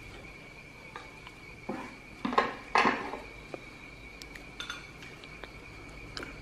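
Chopsticks clinking and tapping against porcelain bowls and plates while eating, a few scattered clinks with the loudest cluster about two and a half to three seconds in. A steady high-pitched tone runs underneath.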